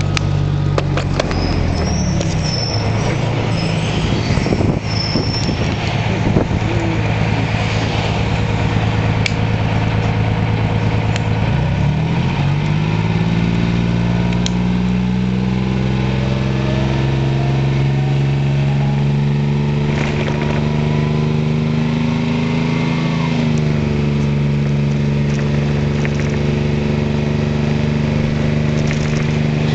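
Diesel engine of a 1988-89 New Flyer D40HF transit bus, heard from inside the bus with body rattles and clicks. Partway through the engine pulls under load, its pitch climbing slowly, then drops suddenly as the transmission shifts up, and runs on steadily.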